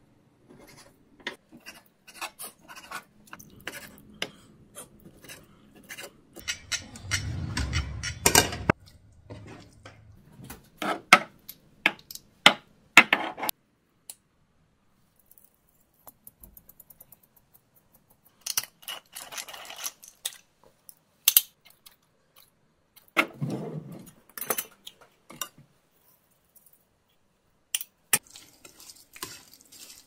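Kitchen food-prep clatter: a run of sharp clicks and knocks from a knife on a wooden cutting board and from spice jars, a sauce bottle and a plastic bowl being handled on the counter, with pauses between.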